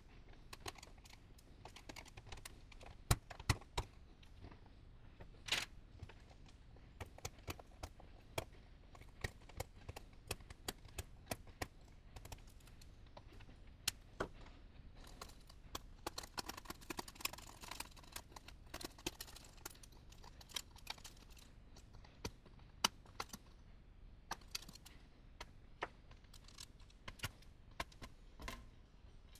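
Irregular small clicks, taps and knocks of hand tools, screws and a circuit board being handled against a metal equipment chassis during a teardown. A few seconds of denser scraping and rattling come about halfway through.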